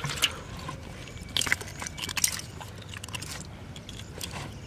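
Fish being handled in a metal basin while a hook is worked out of a fish's mouth: irregular sharp knocks, slaps and scrapes against the metal, loudest in clusters near the start and in the middle.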